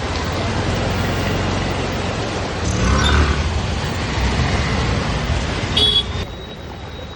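Road traffic on a rain-soaked street: a loud, steady rush of vehicle and road noise with a low rumble. It swells about three seconds in, and a brief high tone sounds near the end before the noise cuts off suddenly.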